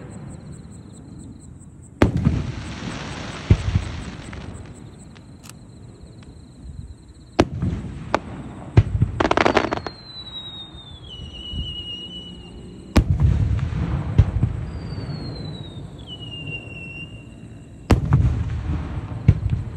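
Aerial fireworks display: about seven sharp booms of shells bursting, each rolling on in a long echo. A dense hissing crackle comes about nine seconds in, and two long whistles fall in pitch, one after the burst near ten seconds and another a few seconds later.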